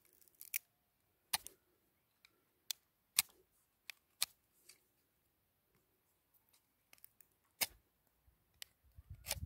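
Small knife blade cutting into a woody grapevine cutting to make a slanted cut at its base: a string of sharp, irregular clicks and snaps.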